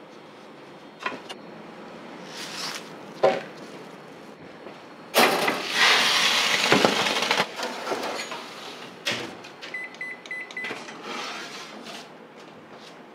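Trays going into a bakery oven: metal trays and oven doors clunking, a loud rushing hiss lasting about two seconds midway, then a quick run of short electronic beeps from an oven's control panel.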